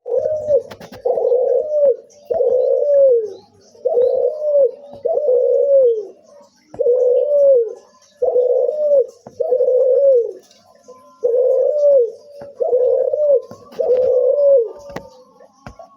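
A puter cuhu, a domestic ringneck dove, cooing over and over in an odd call: about eleven short coos, each under a second long and falling in pitch at its end, with brief pauses between them.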